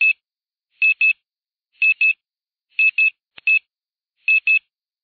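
Electronic beeping sound effect: short high beeps, mostly in quick pairs, about one pair a second, with silence between.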